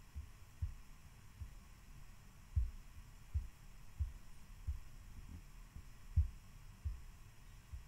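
Faint low thumps, about one every two-thirds of a second and a little uneven, over a low hum.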